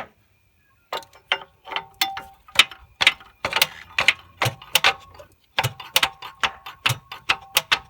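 Hammer tapping on the VT Commodore's faulty starter motor: a string of sharp metal-on-metal knocks, about three a second, each leaving a short ringing tone. It starts about a second in.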